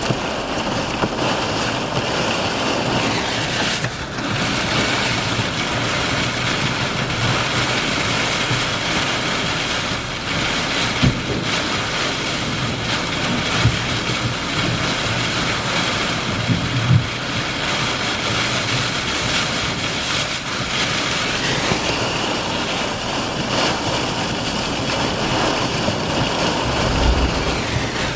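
Strong thunderstorm winds and heavy rain, with gusts buffeting the microphone and a few brief low thumps.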